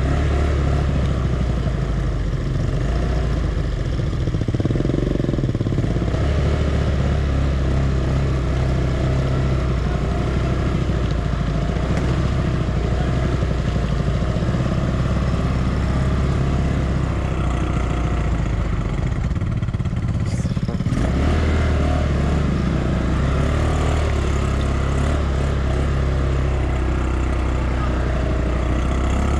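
Grizzly 200cc ATV engine running under load as the quad pulls through deep mud. The engine note shifts with the throttle and dips briefly about twenty seconds in, then picks up again.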